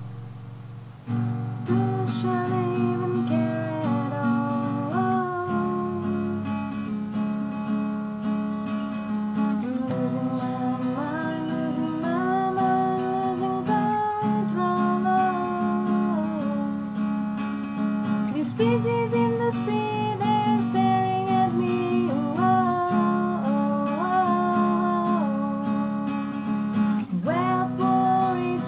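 Acoustic guitar strumming chords under a gliding melody line, starting about a second in.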